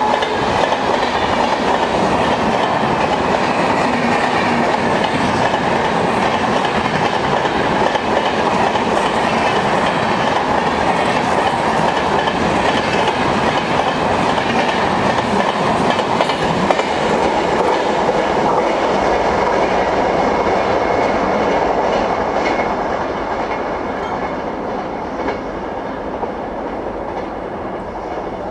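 Express passenger train passing at speed, its wheels clattering steadily over the track. The sound eases off over the last several seconds as the train draws away.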